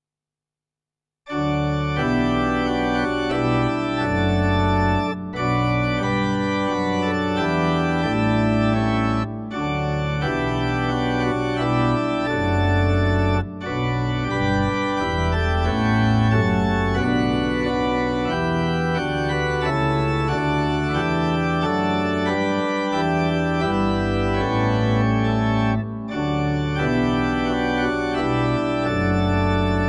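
Ahlborn Hymnus 350 digital church organ playing a slow piece in held chords over low bass notes, starting about a second in, with brief breaks between phrases.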